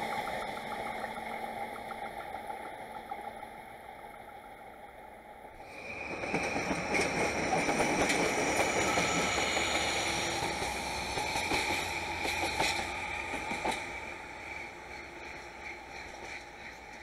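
A passing train's rumble dying away, then a train running on the tracks: a steady rumble of wheels on rail with scattered clicks over rail joints, loudest a few seconds after it starts and tapering off.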